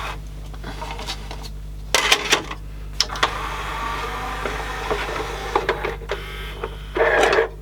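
Yamaha CDC-755 five-disc CD changer's belt-driven mechanism running on a newly fitted drawer belt: a small motor whirring through its gears, with sharp clicks about two and three seconds in and a louder clatter near the end. Noisy.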